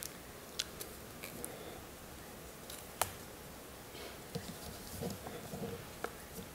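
Quiet room tone with a few faint, sharp clicks and soft rustles, the sharpest click about three seconds in.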